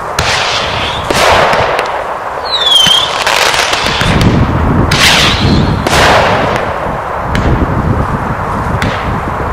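Multi-shot fireworks cake (64 shots) firing its closing volley of reports: a dense, continuous run of loud bangs and crackle, with a short falling whistle about three seconds in.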